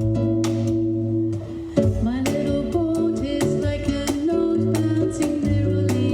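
Live acoustic guitar playing with hand percussion marking the beat, and a voice gliding between notes through the middle of the passage.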